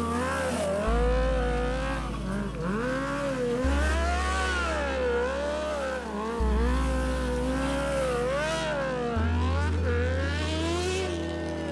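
Stunt motorcycle revving up and down, its rear tyre screeching as it drifts in tight circles. Underneath runs music with a steady bass line that changes note about every three seconds.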